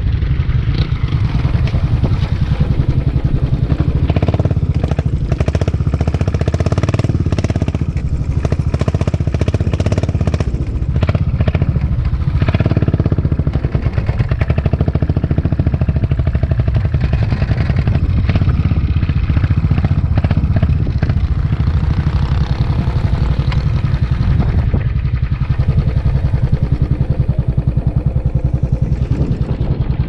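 Royal Enfield Classic 500's single-cylinder engine running steadily under way on a dirt track, a low, rapidly pulsing exhaust beat with road noise over it.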